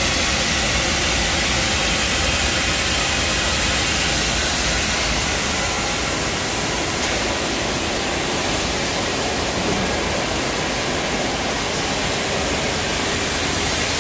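Steady, loud hiss of machine-shop background noise: an even rush of air-like noise with no rhythm, knocks or tones.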